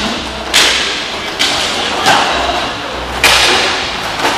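Sharp cracks of hockey sticks and puck during ice hockey play, about five hits roughly a second apart, each echoing around the rink.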